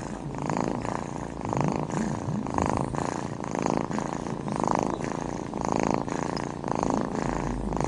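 Domestic cat purring close up while being stroked on the head, the purr swelling and easing about once a second with each breath in and out.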